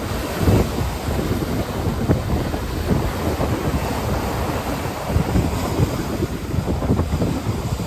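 Ocean surf washing onto a beach, with strong wind buffeting the microphone in irregular low gusts.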